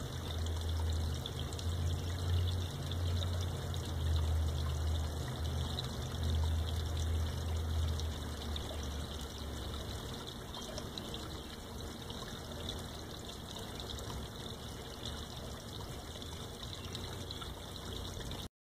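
Water pouring and trickling steadily into a fish pond, with a low rumble coming and going during the first half.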